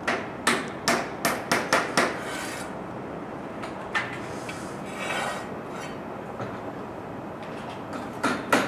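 Hammer blows from construction work: a quick run of about seven strikes in the first two seconds, a single strike about four seconds in, short scraping sounds in between, and another run of strikes near the end.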